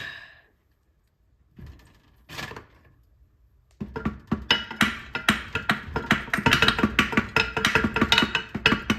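Background music with a quick, steady beat starts about four seconds in. Before it there is near silence, broken by two brief handling noises.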